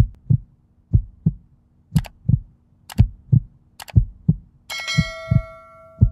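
Sound effects for a countdown and subscribe animation. A heartbeat-like double thump repeats about once a second. Three sharp mouse-style clicks come about two, three and four seconds in, and a bell ding just under five seconds in rings on and fades.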